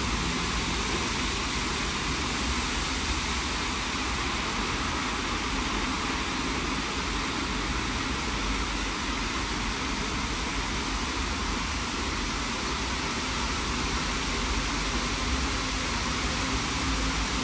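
WashTec SoftCare² Pro rollover car wash in its 40-bar contour high-pressure stage: high-pressure water jets spraying steadily over the car, a continuous hiss with a low hum underneath.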